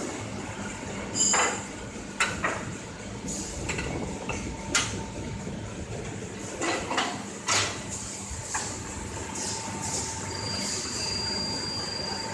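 Sharp metal clanks of steel mould plates and press tooling being handled at a commutator moulding press, about seven knocks in the first eight seconds, over a steady machinery hum. A thin high tone sounds near the end.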